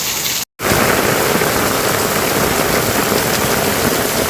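Heavy rain falling steadily. The sound cuts out completely for a split second about half a second in, then the rain comes back a little louder.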